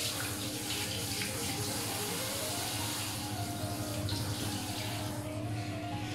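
Water spraying from a hand-held shower head, a steady hiss that thins out about five seconds in. Soft background music plays underneath.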